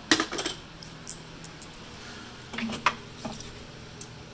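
Metal tool clinks as an E10 Torx socket is picked out of a socket set and fitted to an engine bolt: a short clatter at the very start, then a few more clinks about three seconds in, one with a short ring.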